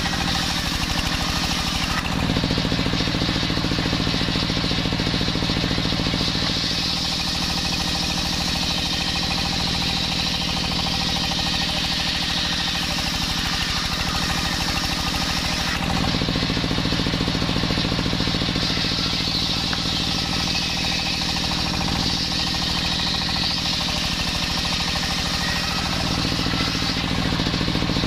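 Homemade belt-driven circular saw bench ripping a jackfruit-wood plank lengthwise: a steady engine-driven drone with the blade's high hissing cut. The note shifts at about two seconds and again about halfway through, and the blade runs free near the end as the plank clears it.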